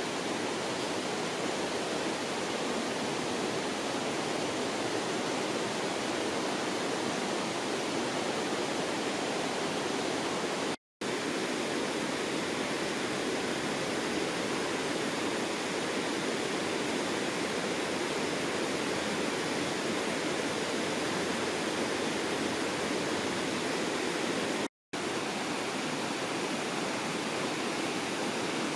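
Steady rushing of a fast, shallow creek running over rocks, cutting out briefly twice.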